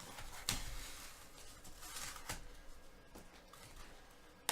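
Faint rustling and a few light clicks of trading cards and packaging being handled.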